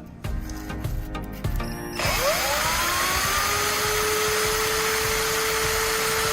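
Electric drill spinning a graphite rod while a file grinds it down: after a few light clicks, the drill starts about two seconds in with a whine rising to a steady pitch and runs on steadily.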